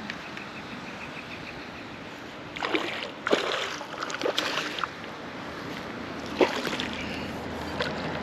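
Splashing water in several short bursts, starting about two and a half seconds in and again a few seconds later: a hooked largemouth bass thrashing at the surface as it is reeled in.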